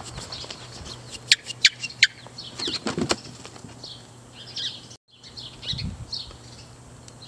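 A small dog rummaging through a plastic wading pool full of toys: rustling, with a few sharp clicks and knocks about a second and a half in. Small birds chirp throughout.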